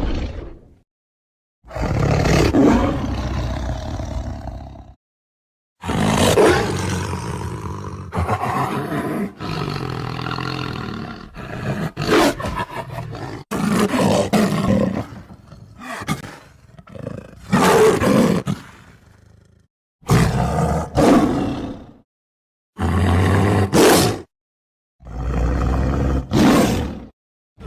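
Tiger roars and growls in a series of separate clips: rough, low-pitched calls lasting one to a few seconds each, split by short silent gaps, with a longer stretch of roaring and growling in the middle.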